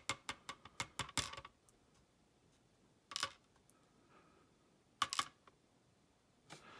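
Small lock pins dropping out of the lock cylinder into a tray: a quick run of light, sharp metallic clicks in the first second and a half, then a few single clicks and short clusters later on.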